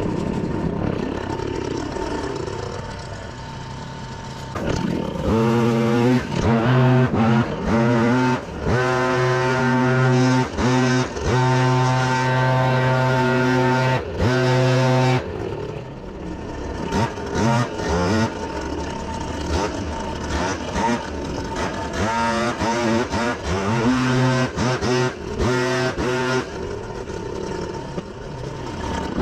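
Gasoline engine of a leaf vacuum running at high speed with a steady drone. Its level and pitch dip and waver for a few seconds twice as the load on the machine changes.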